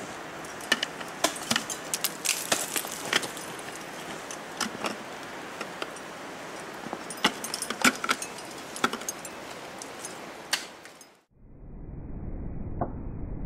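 Steel crampon front points kicking and scraping into the ice of a frozen icefall as a climber steps up: irregular sharp clicks and crunches, with metal gear clinking. About eleven seconds in the sound cuts out, and a low, muffled rumble follows.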